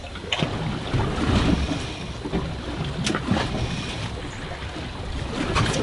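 Wind buffeting the microphone and water slapping against the hull of a small fishing boat drifting on choppy water, with a few sharp knocks: about a third of a second in, about three seconds in, and near the end.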